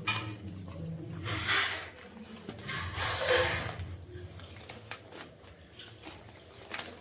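Newspaper pages rustling in two short bursts, about one and three seconds in, followed by a few light clicks over a low background hum.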